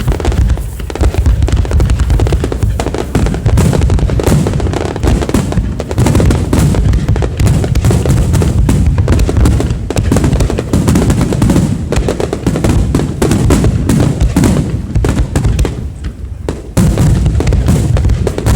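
A dense barrage of aerial firework shells bursting: booms and crackling in quick succession, with a short lull near the end before the bursts pick up again.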